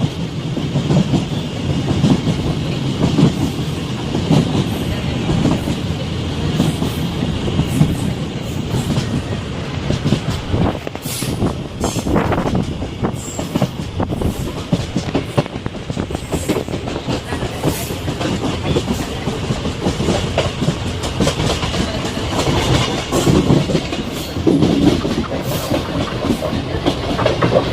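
Passenger train running along the track: a steady rumble of the coach with the wheels clicking over the rail joints.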